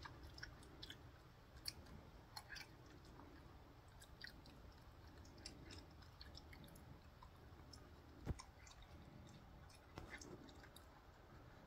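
Faint, scattered small clicks and wet sounds of a raccoon chewing grapes and dabbling its paws in a shallow tub of water, with one sharper knock about eight seconds in.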